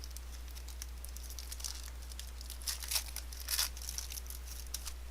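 Plastic wrapping on a trading-card box being crinkled and torn open, in irregular bursts of crackling, the loudest a little past halfway.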